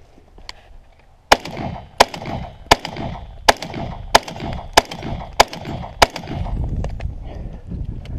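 Shotgun firing eight shots in steady quick succession, about three every two seconds, starting a little over a second in and stopping about six seconds in.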